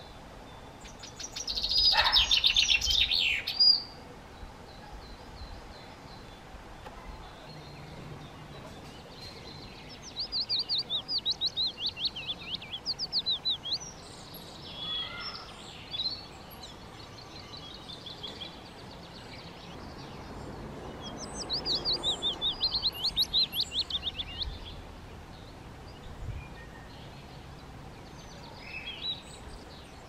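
Songbird singing: several phrases of rapid high notes, each a few seconds long and falling in pitch, with the loudest phrase near the start and short calls in between.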